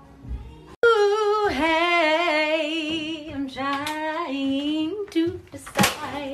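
A woman singing a cappella with her head down inside a top-loading washing machine's drum: a few long held notes with wide vibrato, starting suddenly about a second in and stopping after about five seconds. A short burst of handling noise follows near the end.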